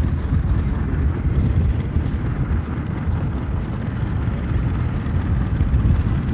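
Wind buffeting the microphone: a steady low rumble that rises and falls slightly.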